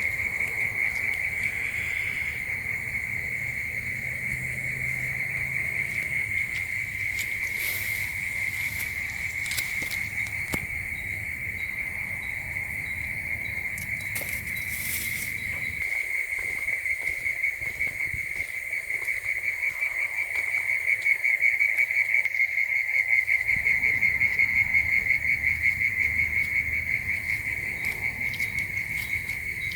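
An insect chorus trilling: a steady, high-pitched, rapidly pulsing drone that grows a little louder past the middle. There are a couple of brief high rustling flurries about a third of the way in and near the middle.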